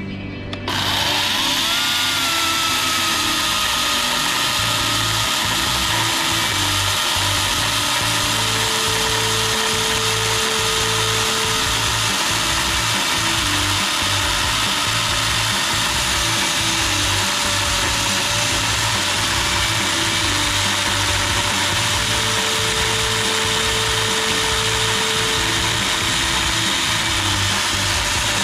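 Ozito 36V brushless battery chainsaw starting. Its motor whine rises as it spools up about a second in, then it runs steadily at full speed while cutting green wood.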